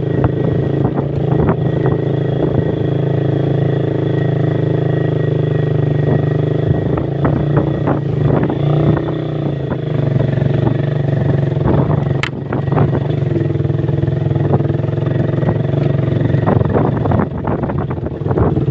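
Motorcycle engine running at a steady pace while riding, with a single sharp click about twelve seconds in.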